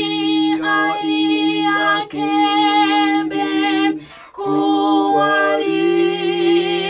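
A woman singing a slow song in a Zambian language, holding long notes with vibrato over a steady low note; the singing breaks off briefly about four seconds in, then resumes.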